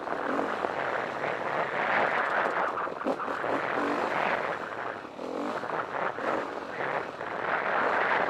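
KTM 350 EXC-F single-cylinder four-stroke dirt bike engine revving and easing off in repeated swells as it climbs a rough, brushy trail.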